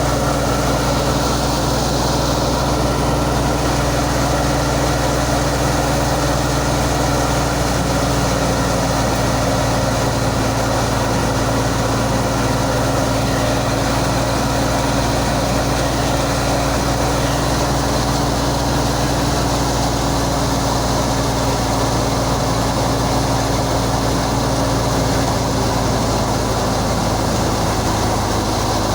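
Heavy farm-machine engine running steadily at a constant speed, a steady low drone with a noisy rush of machinery over it.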